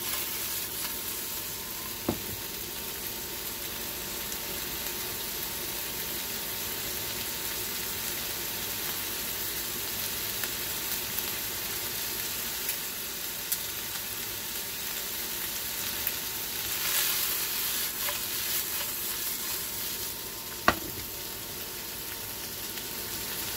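Cubes of ground beef frying in butter and rendered fat in a nonstick skillet, a steady sizzling hiss that swells briefly past halfway. Two sharp clicks cut through it, one about two seconds in and a louder one near the end.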